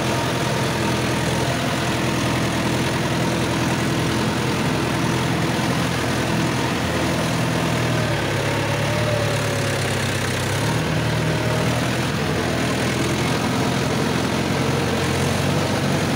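Mahindra Yuvo 575 DI 4WD tractor's four-cylinder diesel engine running steadily while the tractor drives, heard from the driver's seat. Its note changes slightly about halfway through.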